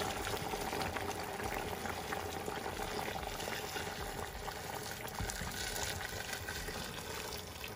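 Boiling water pouring in a steady stream into a hot stainless stockpot of seared chicken pieces, splashing and bubbling as it fills the pot.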